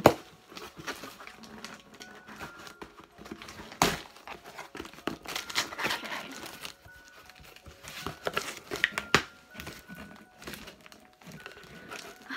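Packing tape being ripped from a cardboard shipping box and the flaps pulled open: sharp tearing snaps with crackling and crinkling of cardboard and paper. The loudest snaps come right at the start and about four seconds in, with a busier stretch of crackling after that.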